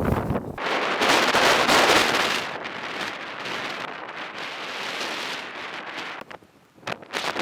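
Blizzard wind. At first it buffets the microphone with a low rumble. About half a second in, it gives way to a loud hiss of wind-driven snow that slowly fades over several seconds. A few sharp gusts come near the end.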